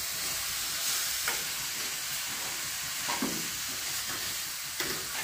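Grated carrots sizzling as they roast in ghee in a steel kadhai, stirred with a spoon that scrapes the pan a few times.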